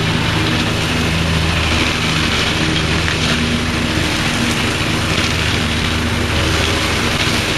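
Scag Cheetah commercial zero-turn mower running at a steady, unchanging pitch while cutting tall, thick grass, the engine note under a broad hiss.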